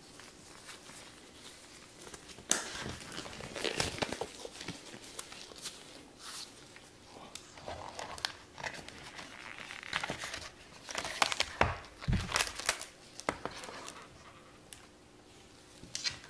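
Cardboard packaging of a Paqui One Chip Challenge box being opened and unfolded by gloved hands, with the chip packet pulled out. Irregular rustling, crinkling and light tapping start a couple of seconds in, with the loudest handling near the middle.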